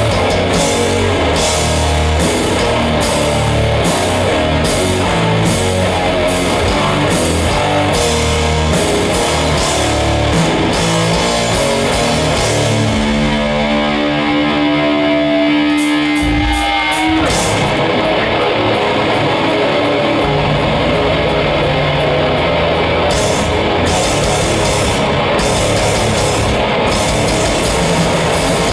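Heavy metal band playing live, with loud distorted electric guitars, bass and a fast drum beat. About halfway through, the drums drop out for a few seconds while the guitar rings on alone and slides in pitch, then the full band comes crashing back in.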